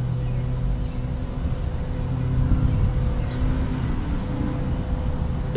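Steady low mechanical hum of a motor running nearby, even and unbroken, with a few faint higher sounds over it.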